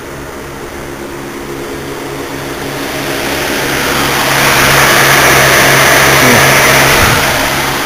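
Range Rover's Rover 3.5 V8 idling at a steady speed while its cooling fans run. Their rush of air swells over a few seconds, holds, then eases near the end.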